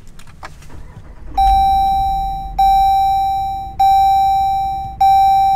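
Warning chime of a 2022 Jeep Grand Wagoneer ringing in the cabin as the ignition comes on. It is one bell-like tone struck four times, about 1.2 seconds apart, starting about a second and a half in. Each strike rings out and fades before the next.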